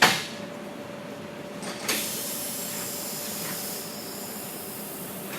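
A sharp knock, then about two seconds in a loud hiss of compressed air that eases to a weaker steady hiss, with a faint steady hum under it.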